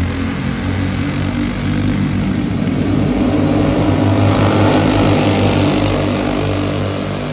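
Engines of a pack of quarter midget race cars running laps together, a dense steady drone of several small engines that grows louder as the cars come past about four to five seconds in, then eases off.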